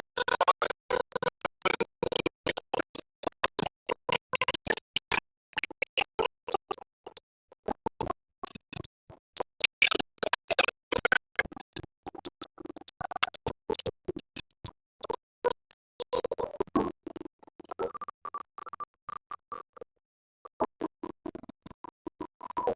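Music chopped into rapid stuttering fragments, like DJ scratching, with brief gaps of silence between bursts.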